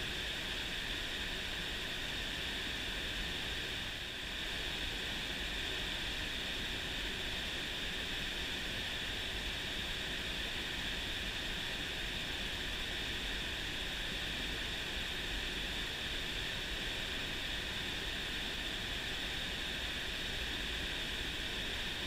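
Fast mountain-stream water rushing over rocks: a steady, even hiss.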